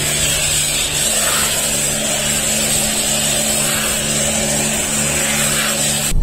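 A vehicle running steadily, with a constant low hum and a thin high whine under a broad rushing noise. It cuts off abruptly at the end.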